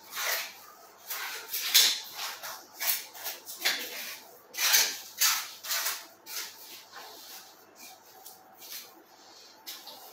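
Boning knife cutting through raw pork shoulder and scraping along the bone, in short irregular strokes, busier in the first half and sparser near the end.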